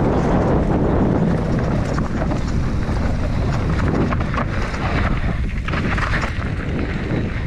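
Wind buffeting the camera microphone on a fast mountain-bike descent, with the bike clattering and tyres rattling over rough trail.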